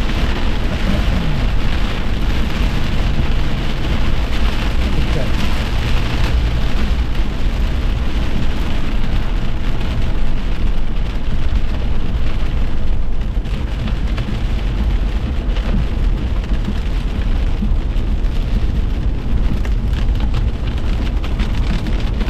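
Heavy rain falling in a steady downpour, with a deep rumble underneath, easing slightly about halfway through.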